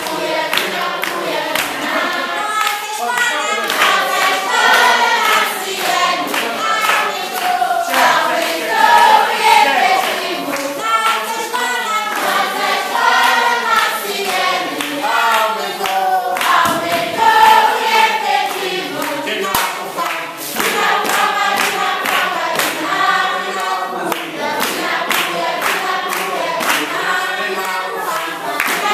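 A group of schoolchildren singing together without instruments, clapping their hands along to the song.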